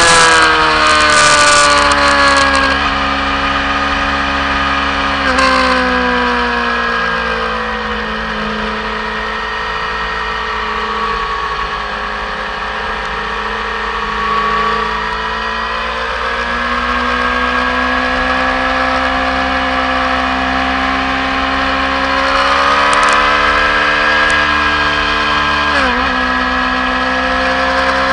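Racing motorcycle's engine heard from onboard: the revs fall away as it slows for a corner, stay low through the bend, then climb again as it accelerates out, with a gear change near the end that drops the pitch suddenly.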